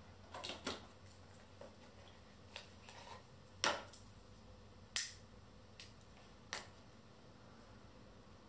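Scattered sharp clicks and taps as a small cardboard pack is handled and set down on a desk, the two loudest about three and a half and five seconds in, over faint room hiss.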